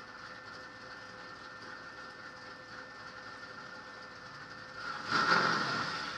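Ford Galaxie 427 V8 race car idling steadily, heard from inside the cabin, then about five seconds in the engine noise suddenly jumps to loud revving as the cars launch off the starting grid.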